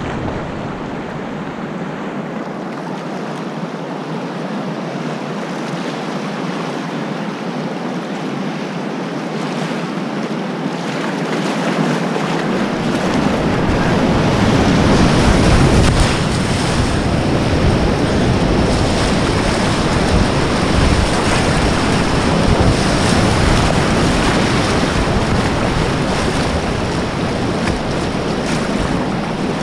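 Rushing whitewater of a river rapid, a steady roar of water that grows louder about halfway through as a deeper rumble joins in.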